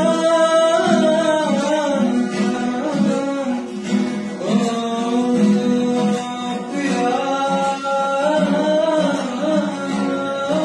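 A man singing a Hindi song in long held notes while playing an acoustic guitar.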